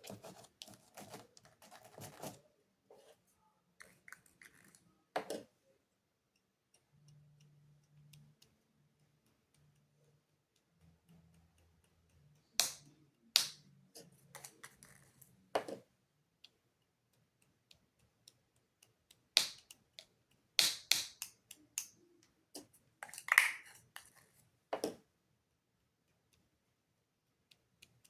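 Irregular light clicks and taps, with a cluster of sharper ones in the second half and a faint low hum for a few seconds before them.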